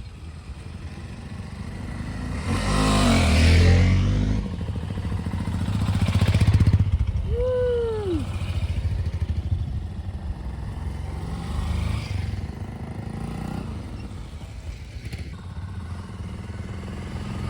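Motorcycle engines running and swelling louder twice as they rev or pass, with a short tone that rises and falls about halfway through.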